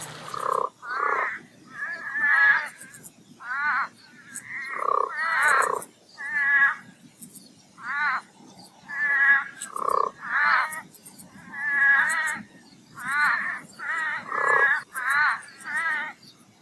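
A chorus of toads calling after a summer rainstorm: wavering calls about half a second to a second long, one or two a second, several overlapping from different toads.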